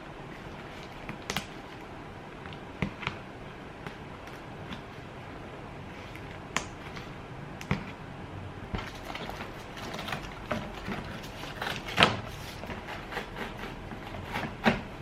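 Hand work on a car door panel: scattered light clicks and knocks, growing busier in the second half, with one louder knock about twelve seconds in.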